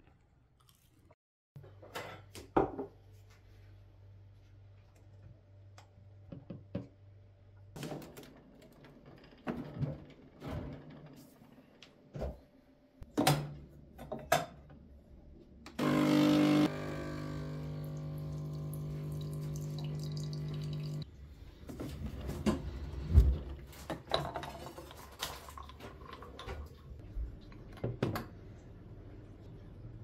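De'Longhi Dedica espresso machine's vibration pump buzzing steadily for about five seconds as it pushes water through the portafilter, then cutting off abruptly. Before and after come scattered clicks and knocks of the portafilter and cups being handled, the loudest a sharp knock shortly after the pump stops.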